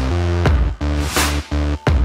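Electronic background music with deep sustained bass notes and a sharp snare-like hit a little past the middle.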